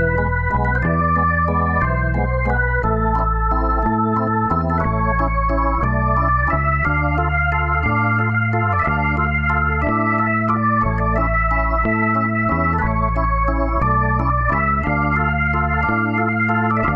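Background music on an organ-like electronic keyboard: sustained chords over a bass line, changing about once a second.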